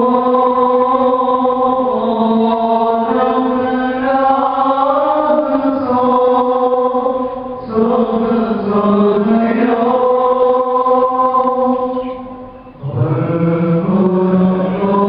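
Group of male clergy chanting a liturgical hymn in unison, slow phrases of long held notes, with two short breaks between phrases about eight and thirteen seconds in.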